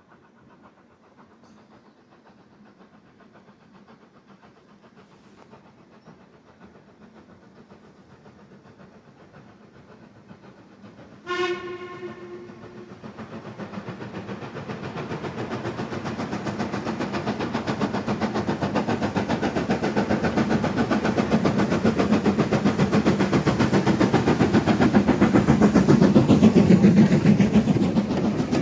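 Steam locomotive gives one whistle about 11 seconds in, lasting just over a second. Its train then approaches and passes close by, the rhythmic beat of exhaust and wheels on rail growing steadily louder toward the end.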